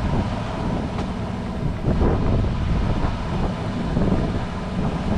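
Wind buffeting the microphone on a fishing boat at sea: a steady, fairly loud low rumble.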